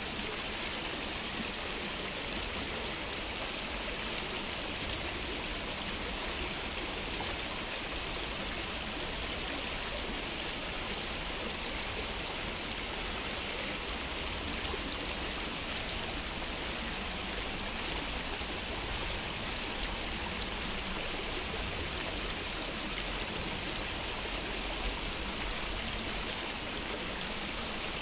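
Stream water flowing steadily, an even, unbroken rush, with one faint click about 22 seconds in.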